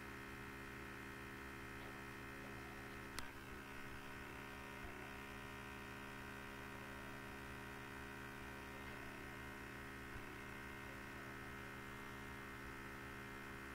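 Steady electrical mains hum made of several steady tones, with one sharp click about three seconds in.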